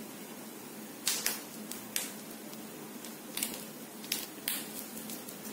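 Scattered light clicks and taps from hands folding and pressing a stuffed paratha dough into a parcel on a marble rolling board, over faint room noise.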